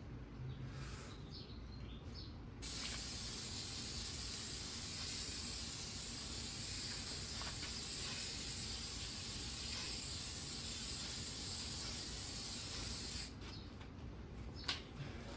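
Aerosol can of headlight UV coating spraying a second coat onto a headlight: one long, steady hiss that starts about two and a half seconds in and cuts off about two seconds before the end.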